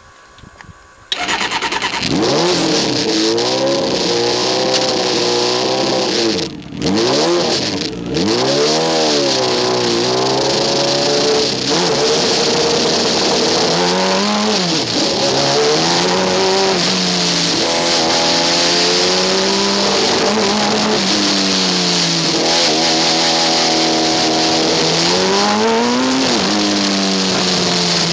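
Formula Student race car engine accelerating hard and revving up and down repeatedly through the gears, heard from the cockpit. It comes in suddenly about a second in and cuts briefly twice around the seventh and eighth seconds, as in quick shifts or lifts off the throttle.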